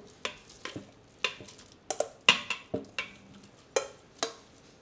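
A kitchen utensil knocking and scraping against a stainless steel bowl as shredded chicken is pushed out of it into the Instant Pot's broth. About eight sharp knocks come at uneven intervals, some with a short metallic ring.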